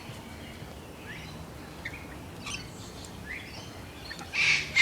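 Rainbow lorikeets calling in short, quick chirps, with a loud, harsh screech near the end.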